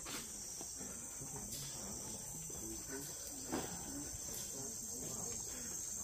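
Steady high-pitched insect chorus, with a few faint knocks in the foreground, the loudest about three and a half seconds in.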